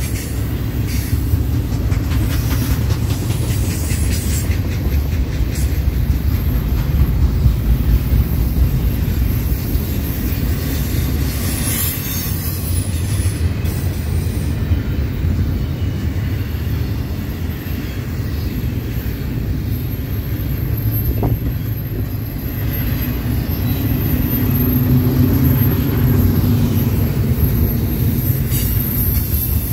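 BNSF double-stack container train of loaded well cars rolling past: a steady low rumble of steel wheels on rail.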